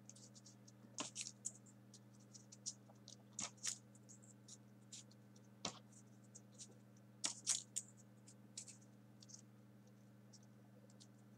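Folded 80 g printer-paper origami pieces rustling and clicking as they are pushed one by one into the rows of a 3D origami model by hand: faint, irregular scratches and ticks, a few a little louder, over a steady low hum.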